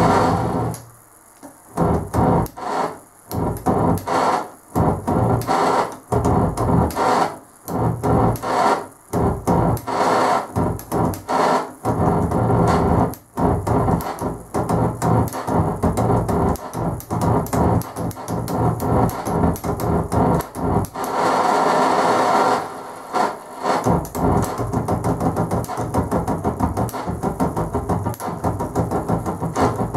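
Turntable scratching: a vinyl record worked back and forth by hand, its sound cut on and off by the mixer's crossfader into rapid stuttering chops, with a few longer unbroken stretches partway through.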